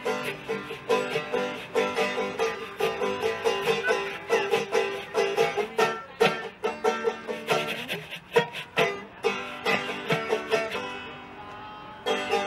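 Instrumental break on banjo and washboard: the banjo picks a quick melody while the washboard clicks out the rhythm. About eleven seconds in the playing drops away briefly, then comes back in.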